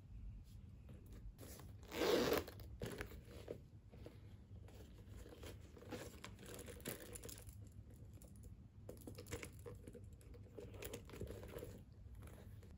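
Faint rustling and handling of a small leather handbag against a paper shopping bag as it is lifted, opened and turned over, with one louder crackly rustle about two seconds in and scattered small clicks and rustles after.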